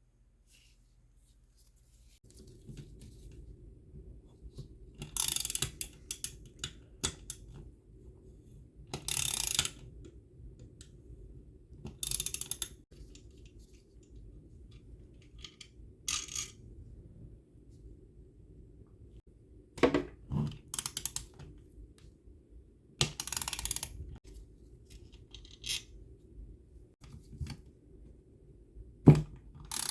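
Small metal parts and tools being handled while an espresso machine is taken apart: irregular clinks, rattles and scrapes, some lasting about a second, over a steady low hum that starts about two seconds in.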